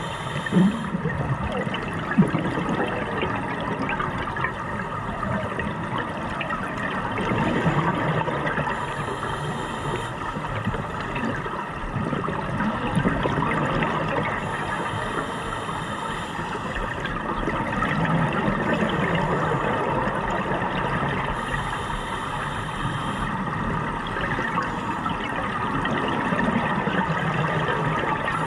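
Scuba diver's regulator breathing underwater: a steady watery rush with a regular breathing cycle about every six to seven seconds, each cycle bringing a short hiss and a swelling gurgle of exhaled bubbles.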